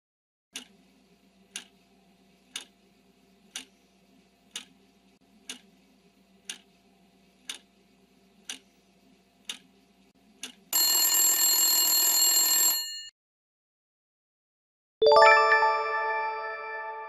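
Quiz countdown-timer sound effect: a clock ticks once a second about ten times over a faint hum, then an alarm bell rings loudly for about two seconds as time runs out. A few seconds later a single bright chime strikes and rings out, fading slowly, marking the answer reveal.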